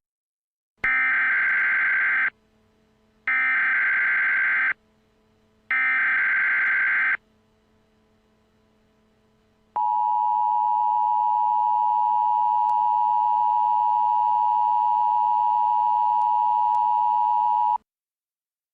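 Emergency Alert System SAME header: three short bursts of screeching digital data tones, each about a second and a half long, marking the start of an emergency alert. They are followed by the steady EAS attention tone, held for about eight seconds before it cuts off.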